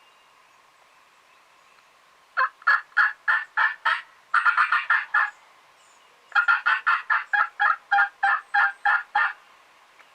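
Wild turkey calling: two long, loud runs of sharp, evenly spaced notes, about four a second, the first starting a couple of seconds in and the second a little after the middle.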